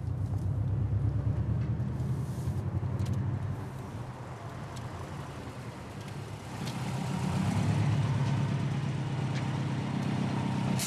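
Subaru Impreza's flat-four engine running as the car drives up and pulls in. The engine note eases off midway and grows louder again from about six and a half seconds in.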